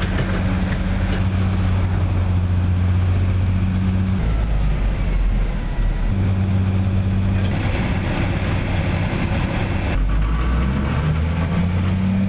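Diesel engines of heavy road-building machines running with a steady low hum, over road-works noise. The engine sound changes abruptly several times.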